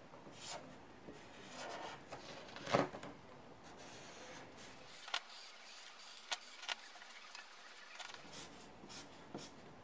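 Marker pen drawing on paper: faint, short scratching strokes with a few light ticks, one stroke about three seconds in louder than the rest.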